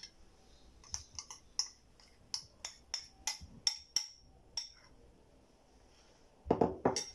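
A small white bowl knocking and clinking against a glass mixing bowl as yogurt and ginger-garlic paste are tipped out onto meat: about a dozen sharp, ringing clinks, then a few louder knocks near the end.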